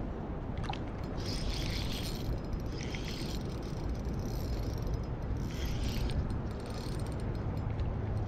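Spinning reel being wound in, about four short bursts of whirring, ticking gear noise, over a steady low rumble of wind on the microphone.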